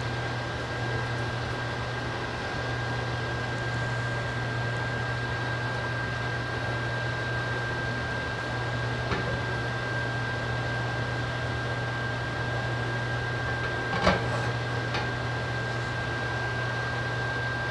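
Steady kitchen hum and hiss with a constant high whine, broken by a faint click about nine seconds in and a sharper, louder click about fourteen seconds in.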